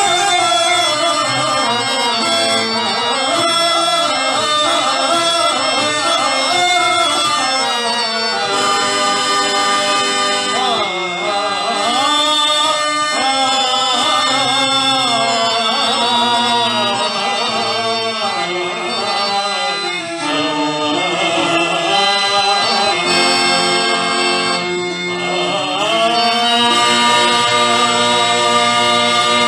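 A male voice sings a Telugu verse (padyam) in a long, ornamented, wavering line over sustained harmonium tones. The singing pauses briefly a few times while the harmonium holds on.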